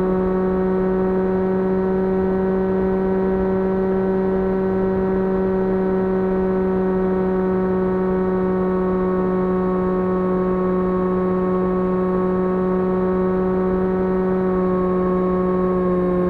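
2300KV brushless motor and propeller of an FPV model plane running at steady cruise throttle, a constant whine that drops slightly in pitch near the end as the throttle eases.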